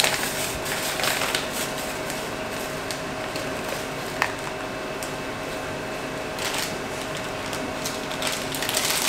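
Cake-mix packets rustling and crinkling as they are shaken out over mixing bowls, with one sharp click about four seconds in.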